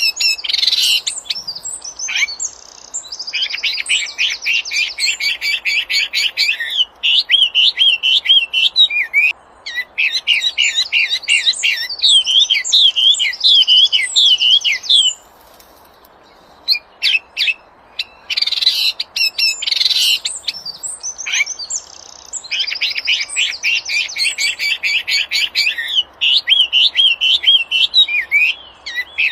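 Wambi songbird singing in full voice: rapid rattling note series and quick twisting whistled phrases, in two long bouts separated by a pause of a few seconds about halfway through.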